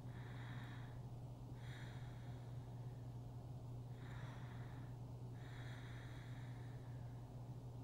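A sleeping person breathing slowly and audibly, about four breaths in a steady rhythm, over a steady low electrical hum.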